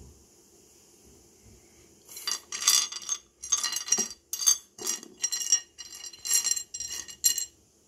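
Pieces of Lightning Ridge rough opal clinking and clattering against each other and the tray as a hand stirs and spreads them. After a quiet first two seconds the clatters come in quick bunches for about five seconds.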